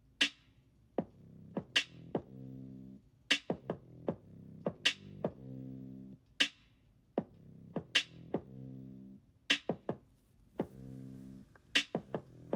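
Background music: a mellow electronic beat with a drum-machine hit about every second and a half and a soft, pulsing low synth chord.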